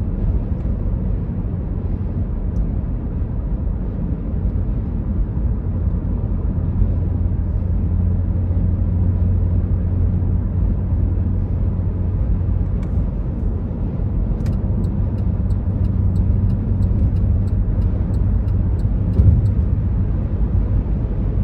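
Steady low rumble of a car driving at highway speed, heard from inside the cabin: engine and tyre road noise. In the second half a faint light ticking comes in about twice a second, and one short thump sounds near the end.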